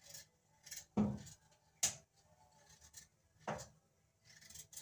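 A kitchen knife peeling a raw potato by hand over a stainless-steel sink: about five short scraping strokes, irregularly spaced roughly a second apart.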